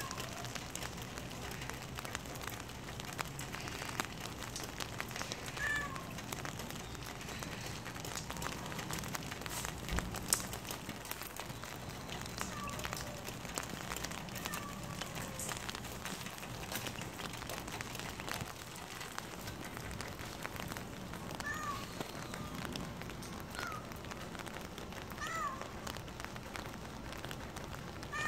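Calico cat giving short meows, about nine spread through, over a steady hiss of rain.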